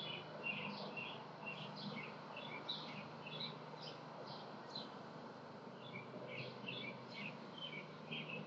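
Small birds chirping: short high notes repeated several times a second, over a steady low hum.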